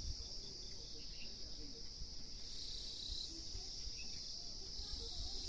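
A steady, high-pitched insect chorus that swells and fades every few seconds, over a low rumble.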